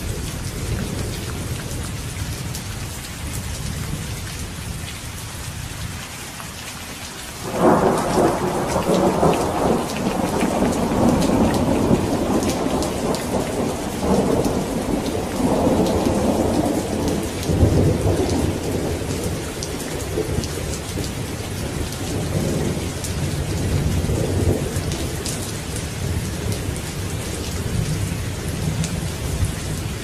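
Steady rain falling, with a sudden clap of thunder about a quarter of the way in that rolls on in several swells of rumbling before fading back under the rain.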